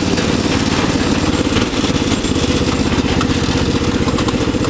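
Riding lawnmower engine running steadily at a high idle, a fast even chug; the idle is set too high and still needs fixing.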